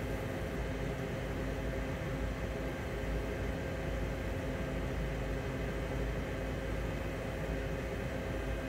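Steady hum and hiss of a CRJ-900 flight deck's cooling and ventilation fans, with faint constant low tones and no change in pitch.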